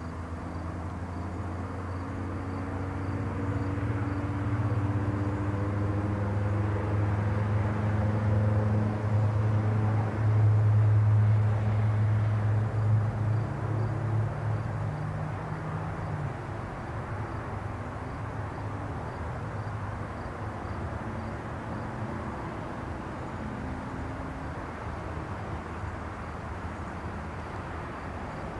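A motor's low, steady hum over outdoor background noise, growing louder over about ten seconds and then fading away about two-thirds of the way through.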